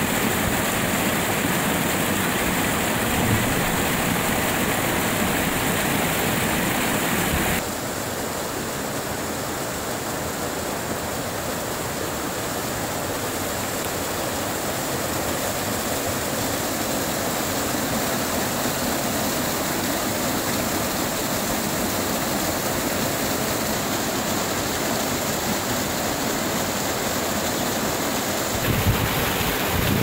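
Small waterfall pouring over rocks and splashing into a shallow pool: a steady rush of water. The rush drops a little and changes suddenly about seven seconds in, and again near the end.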